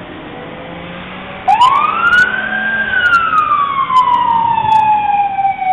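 A siren starts wailing about a second and a half in, loud: its pitch climbs quickly, then slides slowly down over a few seconds, and begins the next climb near the end.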